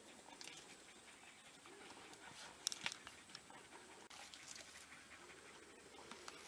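African wild dogs panting faintly as they rest after chasing down an impala, with a couple of sharp clicks about halfway through.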